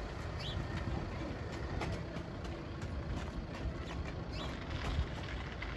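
Steady low outdoor background rumble with faint scattered clicks, and a brief faint high chirp about half a second in.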